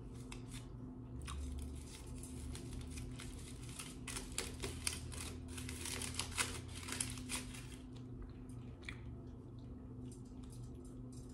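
Close-up chewing of a burrito: wet mouth clicks and soft crunching, many short ones, thickest in the middle, with some crinkling of its foil wrapper. A faint steady low hum lies under it.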